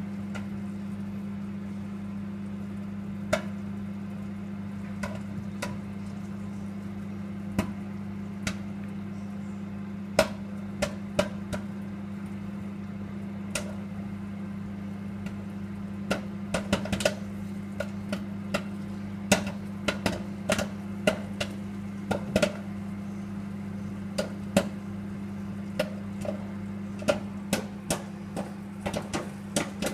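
Microwave oven running with a steady hum while popcorn kernels pop inside it. The pops are sparse and single at first, then come much more often from about halfway through.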